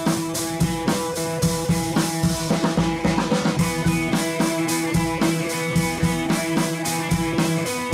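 Background music: a drum kit keeping a steady beat under guitar.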